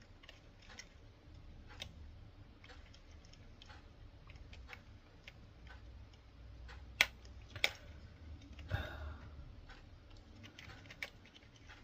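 Light, irregular clicks and taps of small plastic and metal model-locomotive parts being handled, with two sharper clicks about seven seconds in.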